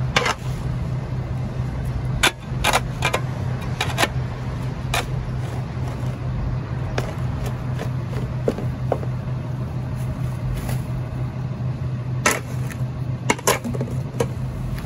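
Rear-loader garbage truck's engine idling with a steady low hum, with a dozen or so sharp knocks and clatters scattered irregularly over it, several close together about two seconds in and again near the end.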